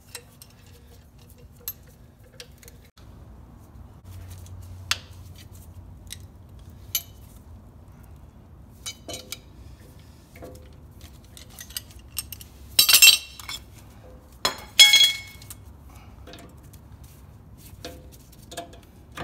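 Metallic clicks and clinks of a C-clamp and an old brake pad worked against a truck's front brake caliper to push its pistons back, then the caliper being handled. About two-thirds of the way through come two loud ringing metal clanks, a couple of seconds apart.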